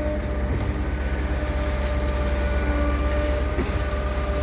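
Truck-mounted boom concrete pump running steadily as it pumps ready-mix concrete: a deep, even engine drone with steady higher tones over it and a few faint clicks.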